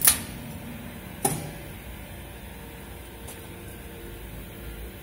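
Two sharp clicks about a second apart as push buttons on the emulsifying mixer's control panel are pressed, then a steady low hum from the machine.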